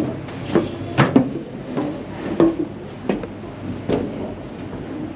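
Footsteps on a ferry's steel stairway and deck, a dull thud every half-second to second that grows softer after the first few steps, over a low steady hum.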